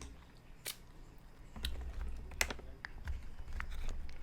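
Close-up eating sounds of black lip mussels being eaten: a string of sharp clicks and smacks from the shells and the mouth, spread irregularly, over a low rumble in the second half.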